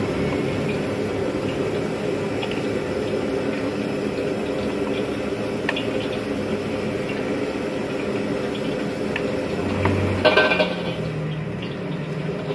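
Gas wok burner running steadily under a wok of heating oil. A few light clicks and one short clatter come about ten seconds in as utensils are handled.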